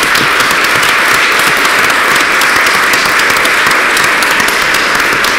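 Audience applauding: many people clapping together, steady and sustained.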